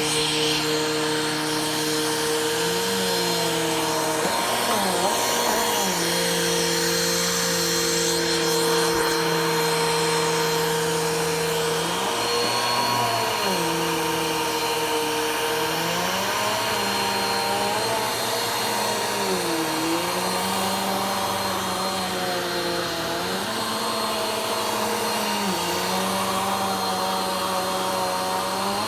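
Vacuum cleaner running continuously, its motor hum dipping in pitch and coming back up every few seconds during slow vacuuming strokes.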